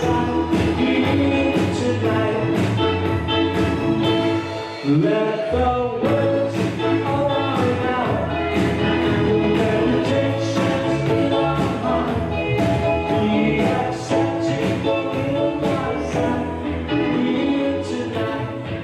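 Gospel choir music: a choir singing over instruments with a regular beat.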